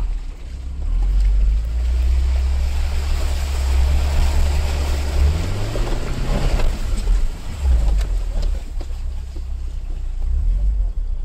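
Vauxhall Frontera's engine pulling on an off-road track, heard from inside the cab: a heavy low rumble, with the revs rising about five seconds in and dropping back about a second later. A rushing noise rides over it, strongest in the middle.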